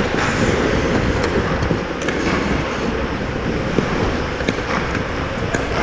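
Ice hockey play close to the net: skate blades scraping and carving the ice in a steady loud rasp, with a few sharp clacks in the last couple of seconds.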